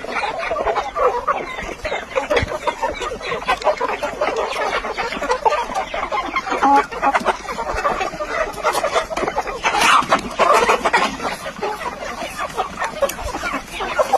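Aseel chickens calling continuously, many birds at once in a busy clucking chatter, with one louder call about ten seconds in.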